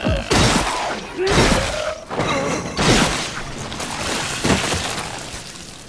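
Animated sound effects of a katana cutting down zombies: a series of sharp slashing hits with wet splatters, about a second apart, with groaning voices between them.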